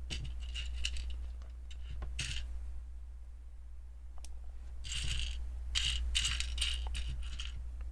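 Small plastic LEGO pieces clinking and rattling together as they are handled and sifted by hand, in several short clusters of clicks, the longest run near the end, over a steady low hum.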